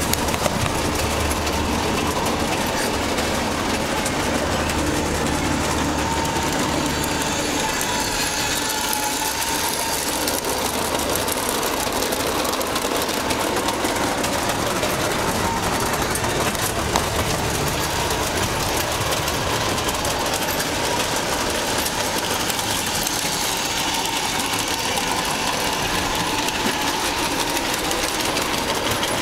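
ACE Trains O gauge model train running on the layout: a steady mechanical running noise with fine rapid clicking of wheels on the track and a constant whine.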